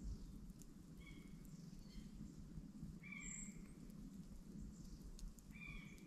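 Quiet woodland ambience with a bird giving short calls several times, one high chirp just after the middle. Underneath there is a faint steady low hum and a few faint ticks.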